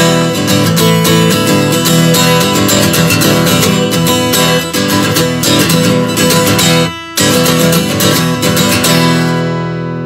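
Song's instrumental ending on strummed acoustic guitar, with a short break about seven seconds in, then a final chord left ringing and fading.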